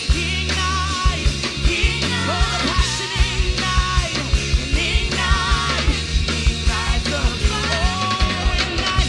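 Live worship band playing a rock-style song: a steady drum-kit beat under a full band, with a wavering sung or lead melody line.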